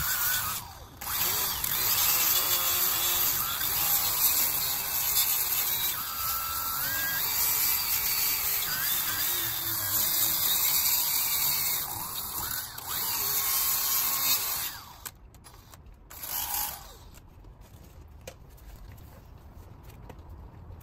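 Cordless rotary tool with an abrasive disc grinding rust off the steering knuckle's wheel-bearing bore, running steadily with a brief pause about a second in. It stops about fifteen seconds in, with one short burst a second or so later.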